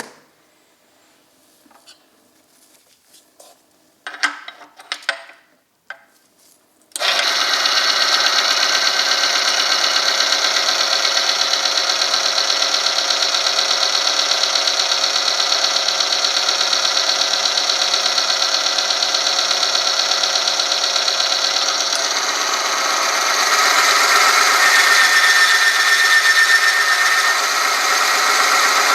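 Oil-film friction test machine, a motor spinning a shaft against a metal sample bathed in 100°C engine oil: a few handling clicks, then it switches on suddenly about seven seconds in and runs steadily with a fast rattling whir. About two-thirds of the way through the sound changes and grows a little louder, with a thin whistling squeal from the rubbing under load.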